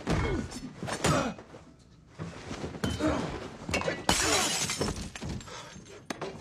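Film fight sound effects: several sharp hits near the start, then a loud crash of breaking glass about four seconds in, the loudest sound.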